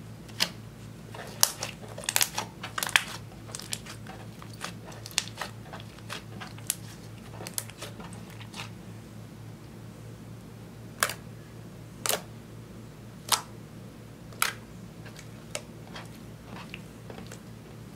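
Hands kneading and pressing soft slime, giving irregular sticky clicks and pops: a quick cluster in the first few seconds, then single pops about a second apart. A steady low hum sits underneath.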